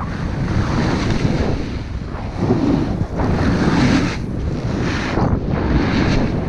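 Wind rushing over the microphone of a body-worn action camera as a snowboard slides through snow, the rush of wind and the hiss of snow under the board rising and falling with the turns.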